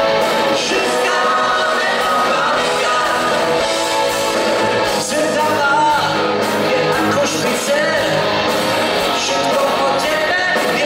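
Live pop-rock band playing with a lead vocal, guitar, keyboards and drums, heard from the audience in a large arena hall.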